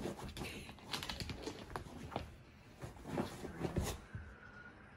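Akita dog chewing and nibbling a fabric toy: quick irregular clicks and rustles of teeth and paws working at the cloth.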